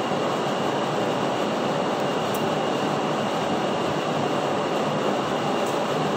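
Steady, even rushing noise, loud and unchanging, with no clear tone or rhythm.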